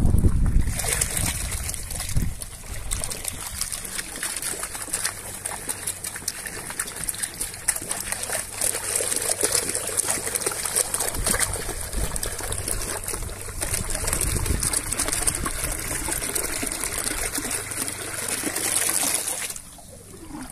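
Aerated pond water gushing and splashing out of the outlet pipe of a DIY airlift (mammoth) pump onto the water surface, a steady bubbling rush that drops suddenly near the end.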